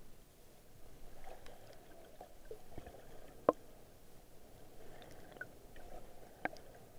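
Muffled underwater sound through an action camera's waterproof housing: a low wash of water with scattered sharp clicks, the loudest about three and a half seconds in and another near the end.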